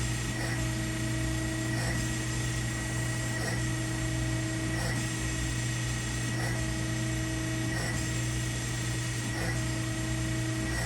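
Harig Bridgeport 618 EZ-Surf CNC surface grinder running a plunge-and-reciprocating grinding program: a steady spindle and motor hum with a high whine, and a faint tick about every second and a half.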